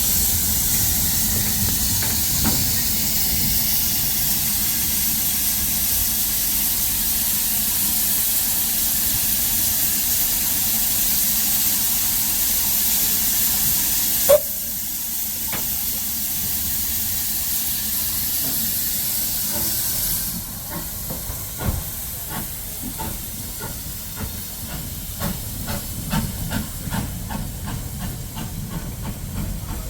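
Steam locomotive with steam hissing steadily and loudly, with one sharp click about halfway through. About two-thirds in the hiss stops and a regular run of short beats begins as the train gets moving.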